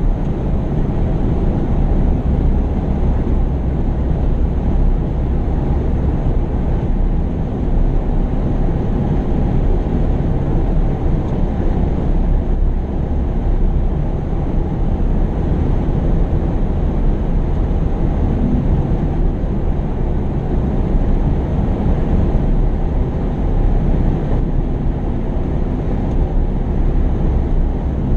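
Heavy earthmoving machinery's engine running steadily, low-pitched and even.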